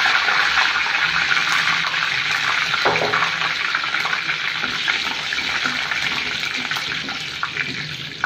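Washed curry leaves sizzling and spattering in hot sesame oil in a clay pot, the water on them flashing off. The sizzle is loud at first and slowly dies down.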